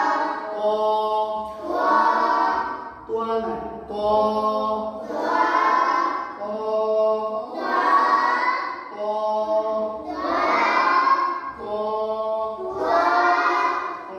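A lead voice chants a short recitation phrase and a group of children chant it back in unison. The call and response alternates every second or so, about six rounds in all, in the manner of a maktab reading drill.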